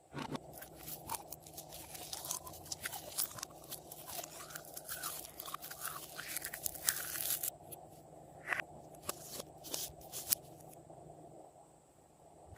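Store-bought slime with makeup clay mixed in, squeezed and kneaded by hand. It crackles and pops densely, then thins to a few scattered pops after about seven seconds and goes quiet near the end.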